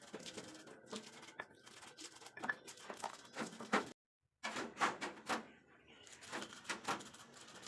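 Irregular clicks, knocks and rustling from handling things in the kitchen, broken by a short gap of silence about halfway through.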